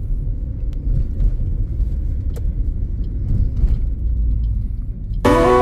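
A low, steady rumble with a few faint clicks, like vehicle noise or wind on the microphone. Music with plucked-string notes starts suddenly near the end.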